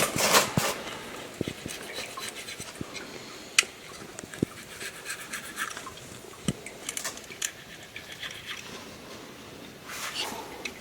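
Razor blade scraping in short intermittent strokes, a dry scratching broken by scattered small clicks and taps.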